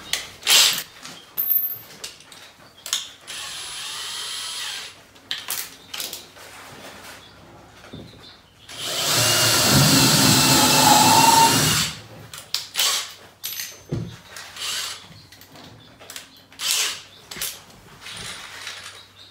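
Cordless drill running into the edge of a plywood panel, drilling the pilot hole and driving the screw. There is a short, quieter run about three seconds in and a loud, steady run of about three seconds near the middle, with scattered clicks and knocks in between.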